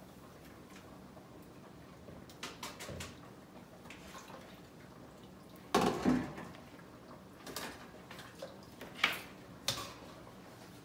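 Kitchen clatter of pots and a metal pot lid: a loud clank about six seconds in, with several lighter knocks and clinks before and after.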